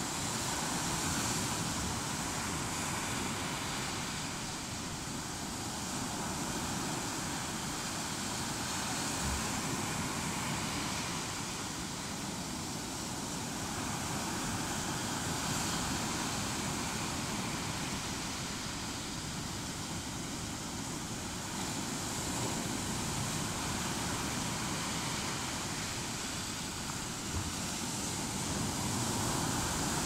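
Sea waves breaking on rocks and washing up a sandy beach: a steady rushing noise that swells and eases every few seconds.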